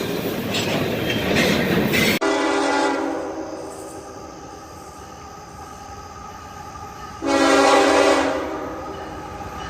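A passing train rumbling on the rails, then, from about two seconds in, a CSX locomotive's second-generation Nathan K5HL five-chime air horn sounding. It fades to a softer steady chord, then gives a loud blast about seven seconds in.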